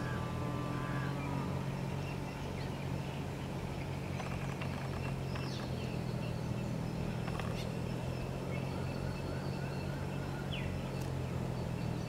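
Steady low motor hum with faint, scattered chirps of small birds over it.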